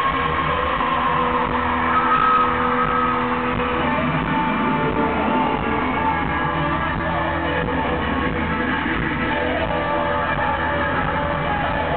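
Live band music from a pop-country concert in an arena: electric guitars and drums playing at a steady loud level, heard from the audience with the hall's echo.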